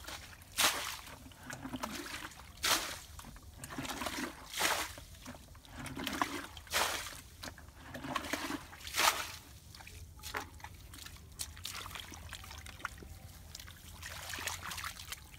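Hands sloshing and splashing water in a metal basin while washing sliced banana blossom, with a louder splash about every two seconds. After about ten seconds it turns to softer trickling and dabbling.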